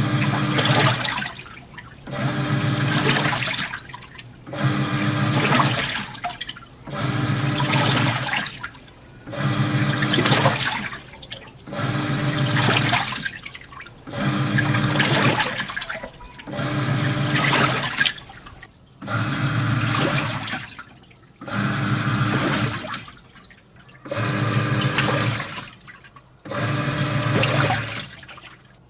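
Sharp ES-FG45 top-loading washing machine agitating a load of water, running on a newly replaced V-belt: the motor hums and the water churns in bursts of about two seconds, about a dozen times, with short pauses between as the pulsator reverses.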